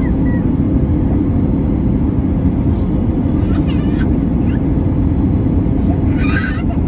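Steady low cabin roar of an Airbus A321neo descending on approach, engine and airflow noise heard from inside the passenger cabin, with a faint steady hum. A brief high, wavering voice-like cry cuts through a little past halfway, and a short hiss comes near the end.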